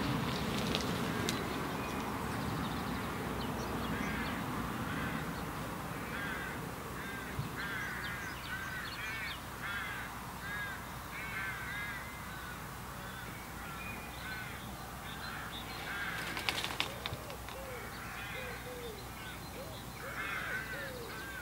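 Birds calling: a long run of short, quickly repeated calls, joined near the end by a few lower falling calls. A low rumble fills the first few seconds, and a brief cluster of clicks comes about two-thirds of the way through.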